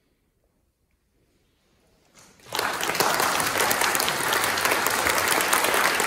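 Near silence, then an audience starts applauding about two and a half seconds in, with steady, dense clapping after that.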